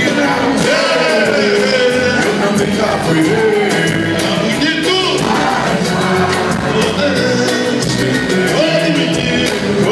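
Live Brazilian band performing: male voices singing into microphones over a full percussion section of hand drums, loud and continuous.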